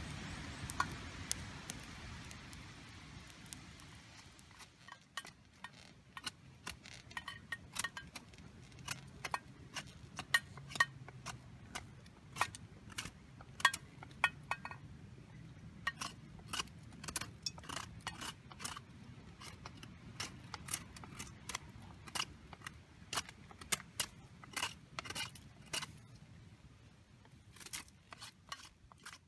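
Metal cooking gear and utensils clinking and tapping: many sharp, irregular clinks, some ringing briefly.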